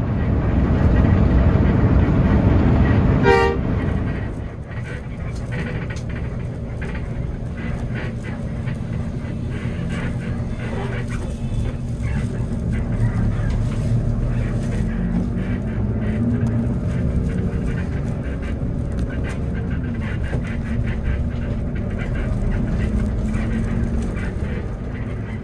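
Vehicle running with a steady low rumble, with a short horn toot about three seconds in. After the toot the rumble quietens and stays even.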